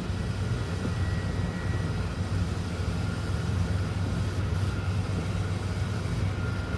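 Steady low mechanical hum with a faint high whine, unchanging throughout, like a fan or air-conditioning unit running.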